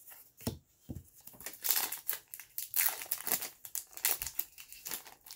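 Crinkling and tearing of a plastic-foil baseball card pack wrapper as it is handled and opened: a run of irregular crackles, densest in the middle, with a couple of soft knocks in the first second.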